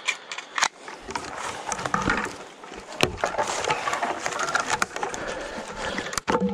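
Footsteps rustling and crunching through dry fallen leaves and twigs, with scattered sharp clicks and knocks of sticks being handled.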